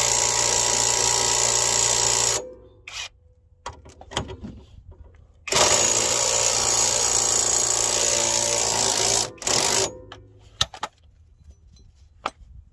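Cordless impact wrench hammering on a stuck suspension bolt under the car, the bolt not wanting to move. It runs in two long bursts of about three to four seconds each, then one short burst, with a few clicks and knocks after.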